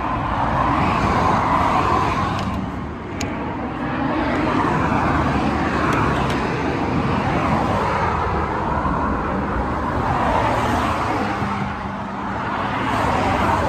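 Road traffic passing close by, a continuous rush of tyre and engine noise that rises and falls as vehicles go past.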